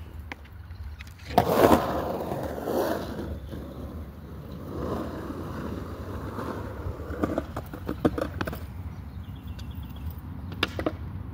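A skateboard: a loud clack about a second and a half in, then the wheels rolling steadily, with a few more sharp clacks of the board later on.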